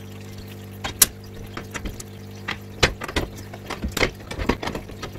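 Irregular clicks and metallic knocks of hand tools working the hex bolts on the steel cage bars of an IBC tote, the sharpest knock about a second in.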